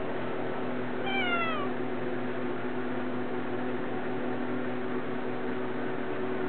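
A three-month-old Siamese Munchkin kitten gives one short, high meow that falls in pitch, about a second in, over a steady background hum.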